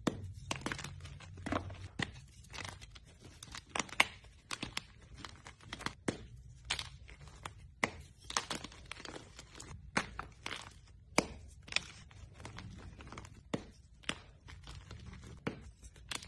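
Blocks of dyed reformed gym chalk crumbling and snapping between the fingers over a bowl of chalk powder: an irregular run of sharp crackles and soft crunches.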